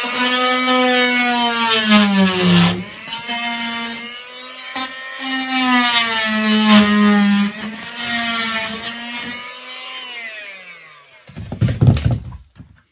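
Fein MultiMaster oscillating multi-tool cutting plasterboard, a high buzzing whine whose pitch sags and recovers as the blade loads up in the board, then winds down. A short low rumbling burst follows near the end.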